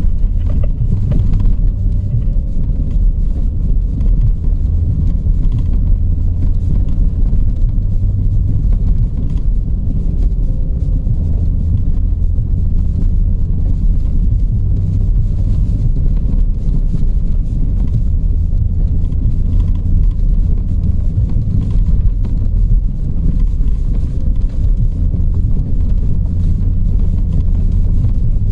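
Steady low rumble of a motor vehicle, with no sudden events.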